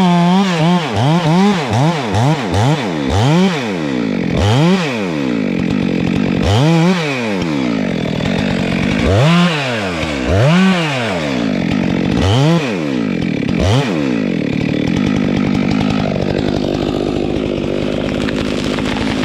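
Stihl MS 462 chainsaw revving in repeated throttle blips, each a quick rise and fall in engine pitch, fast at first and then a second or two apart. About fifteen seconds in it drops to a steady idle.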